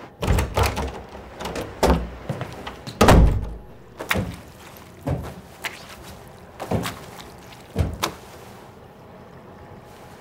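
A run of irregular knocks and thuds, the heaviest about three seconds in, with lighter knocks that die away about eight seconds in.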